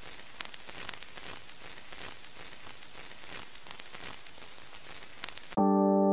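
Steady static hiss with scattered crackles at the opening of a song's recording. About five and a half seconds in, a sustained synth or keyboard chord starts.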